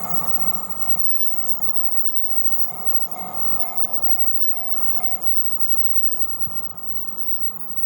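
Japanese railway level-crossing alarm ringing in a quick repeating two-tone pulse, about two and a half a second, over the fading noise of a passing train; the alarm stops about five seconds in as the crossing clears.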